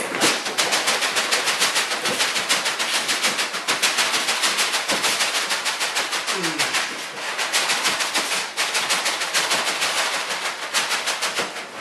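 Styrofoam packing sliding and scraping against the inside of a tight-fitting cardboard box as the box is worked off it: a rapid crackling chatter of many clicks a second, with a short falling squeak about six and a half seconds in.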